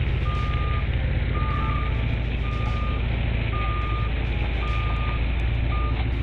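Backup alarm on a piece of earthmoving equipment, sounding a steady high beep about once a second over the close, steady rumble of its diesel engine.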